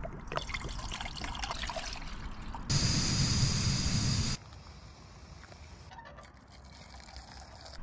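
Water trickling and being poured into an enamel mug, then a portable gas camping stove's burner hissing steadily under a pot for about a second and a half, cut off abruptly; after that, a quieter pour of hot water from the pot into the mug.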